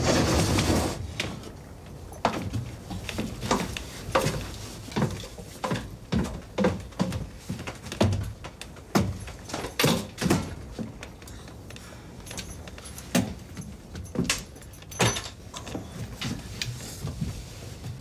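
A series of irregular wooden clunks and knocks as a boat cabin's door and hatch are opened and a man on crutches clatters down wooden steps into the cabin.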